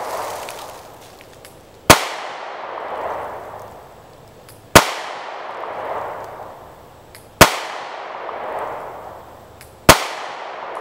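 Four single shots from a 9mm micro-compact pistol firing 115-grain FMJ, slow aimed fire about two and a half seconds apart, each sharp crack followed by a long fading echo.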